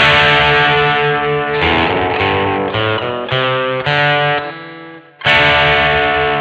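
1982 Vantage VE-550 electric guitar played with distortion: a run of strummed chords. One chord fades away just before five seconds in, then a new chord is struck and left to ring.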